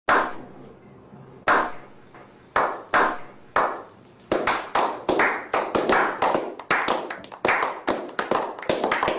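Hand claps with a ringing tail: a few single claps spaced about a second apart, quickening about four seconds in to steady clapping at two to three claps a second.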